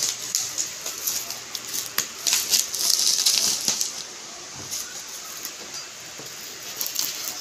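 Black plastic bubble wrap being pulled and torn off a cardboard box by hand: rustling and crinkling with many sharp crackles, loudest a few seconds in.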